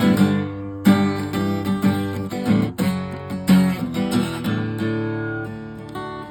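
Acoustic guitar strumming chords in an instrumental break of a song, with no singing, easing off in level over the last couple of seconds.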